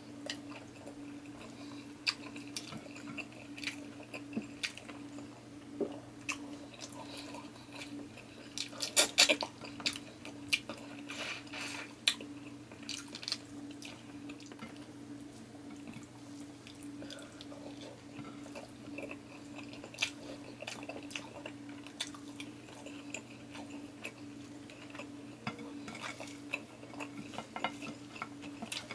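Close-miked eating by hand: chewing and mouth sounds, with fingers and food clicking and scraping on ceramic plates and a shrimp being pulled apart, with a short run of louder cracks and clicks about nine seconds in. A steady low hum runs underneath.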